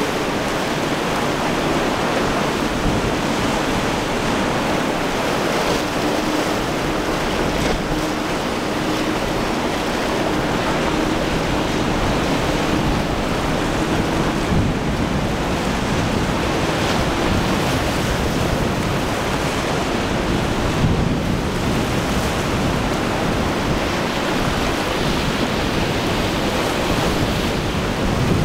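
Steady rush of surf and choppy breaking waves, with wind buffeting the microphone. A faint steady boat-engine drone sits underneath through the first half.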